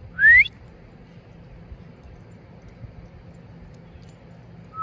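A person whistling once, a short upward-sliding recall whistle calling a dog to come.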